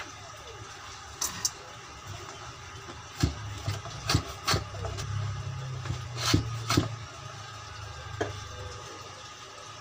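Scattered knocks and clunks of wood, about seven, as board pieces are handled and clamped in a metal bench vise. A low hum runs under the middle few seconds.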